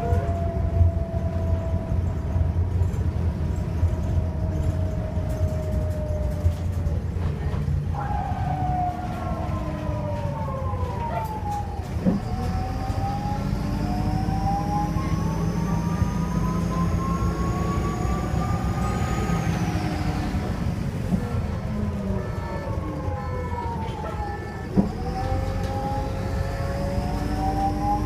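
2002 Optare Solo bus under way, its diesel engine making a steady low drone while whining tones climb with speed and then drop sharply, twice. A thin, high turbo whistle climbs slowly through the middle and falls away before the end.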